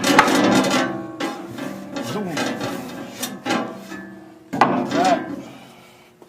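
A series of sharp knocks and clanks with some ringing, about six of them, from parts of the sawmill equipment being handled; no saw is running.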